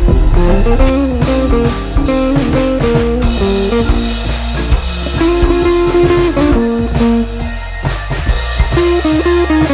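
Background music: a blues-style tune on guitar with drums and a steady beat.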